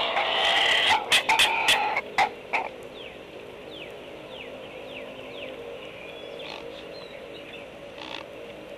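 Young birds squawking harshly, with sharp clacks mixed in. The squawks are loud for the first two and a half seconds, then stop. A run of faint, short, falling chirps from other birds follows.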